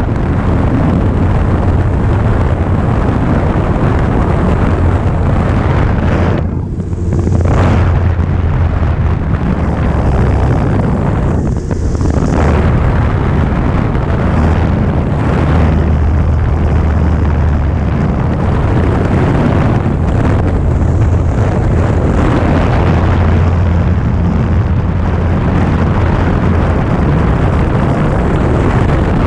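Light high-wing airplane's piston engine running with a loud, steady drone in flight, mixed with wind rushing over an onboard camera's microphone. The sound thins out briefly twice, about seven and twelve seconds in.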